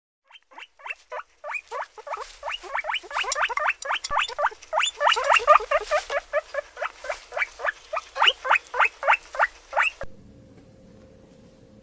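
Small animal calls: a rapid string of short, high chirps, each dropping in pitch, several a second, which stop about ten seconds in.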